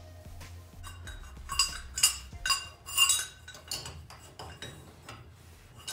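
Steel wrench clinking against a nut, washer and bolt while a roof-rack bolt is tightened from underneath: a handful of sharp metallic clinks with a short ring, loudest in the middle.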